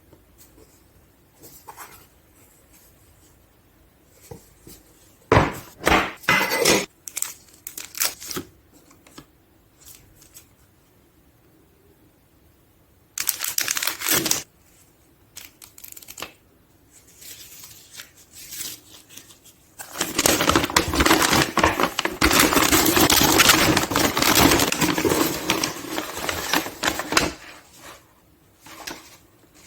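Handling noise from unpacking a watch: scattered clicks and taps, a short burst of rustling about halfway through, and a longer stretch of packaging rustling and crinkling near the end.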